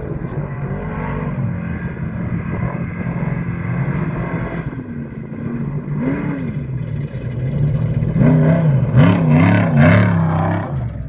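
Off-road race vehicle's engine revving up and down repeatedly as it passes, loudest about three quarters of the way through, with a rushing hiss as it goes by.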